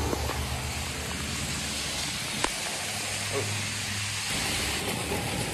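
Heavy rain falling in a steady hiss, with the low hum of a running outdoor air-conditioner condenser underneath, almost drowned out by the rain.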